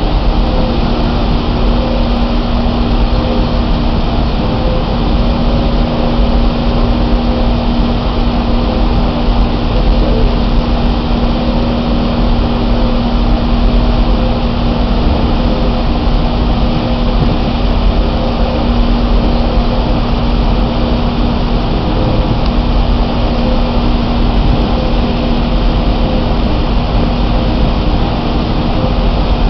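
Steady loud drone of the Manannan catamaran ferry's engines and machinery running while it lies at the berth, a constant low hum over a deep rumble.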